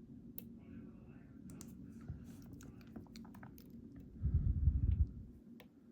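Small scattered clicks and light scrapes of lock picks working the pins and sliders inside an EVVA ICS dimple lock cylinder while it is being picked. About four seconds in, a low rumble lasting about a second is the loudest sound.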